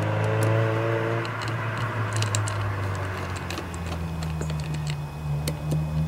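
Small sharp clicks and ticks of a hand tool working the screws of a small-engine carburetor as they are tightened down, over a steady low hum.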